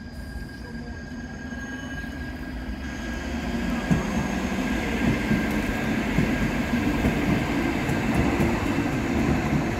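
Cologne Stadtbahn light-rail train passing close by, its wheels rumbling on the rails and growing louder about three seconds in as it draws level, with a few knocks of wheels over rail joints.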